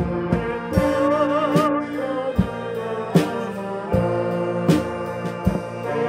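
A live church brass band plays with keyboard and guitars over a steady beat, sustained chords and a lead melody with vibrato about a second in.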